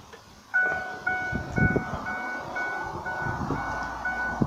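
Truck's warning chime dinging evenly, about two dings a second, starting about half a second in. Low knocks of handling run underneath.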